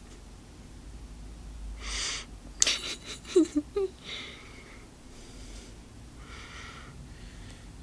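A breathy intake, then a sharp explosive nasal burst like a sneeze or snort, followed by a few short squeaky grunts and softer breathy puffs.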